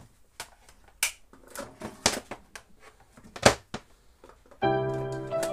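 Scattered light clicks and knocks, then about four and a half seconds in an electronic keyboard-like musical jingle starts and holds a chord, changing note once near the end.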